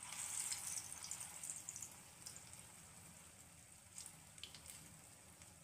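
Moong dal pakora batter sizzling in hot oil in a frying pan: a hiss that starts sharply as a spoonful hits the oil, strongest over the first two seconds, then eases. A few short pops and crackles come through it later on.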